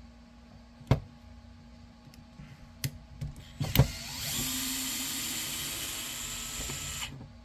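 A few sharp knocks of handling, then a DeWalt cordless electric screwdriver runs steadily for about three seconds, undoing a screw on an RC truck, and stops abruptly.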